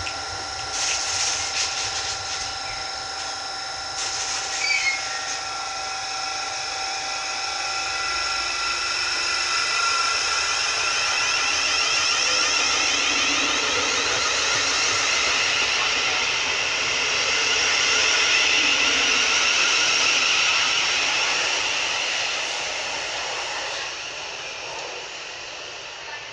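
Thameslink Class 700 electric multiple unit pulling away along the platform. Its traction motors whine, steady at first and then rising in pitch as it gathers speed. A few sharp clicks come in the first five seconds, the sound is loudest about two-thirds of the way in, and it fades as the train clears.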